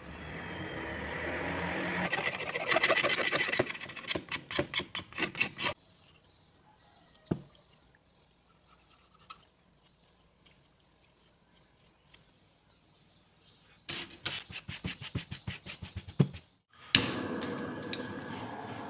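Two runs of rapid clicking, each stopping abruptly, then near the end a sharp click and the steady hiss of a handheld butane gas torch burning.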